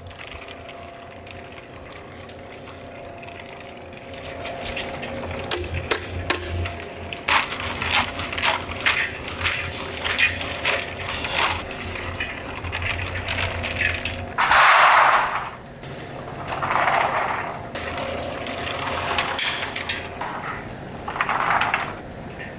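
Snack-factory production machinery running with a steady hum. From a few seconds in it clatters with many quick clicks and knocks, and there are several short rushing bursts, the loudest about two-thirds of the way through.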